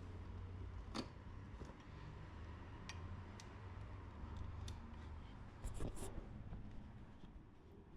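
A few scattered light clicks and taps of hand tools and small parts being handled, over a low steady hum.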